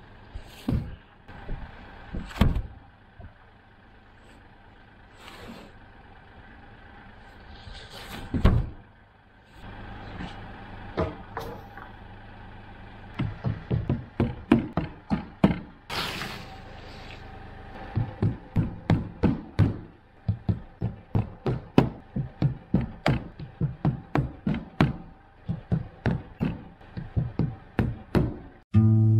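Carpentry on a wooden building: a few separate knocks, then long runs of quick sharp strikes, about four a second, as of nails being driven into wood, over a steady hum. Guitar music comes in at the very end.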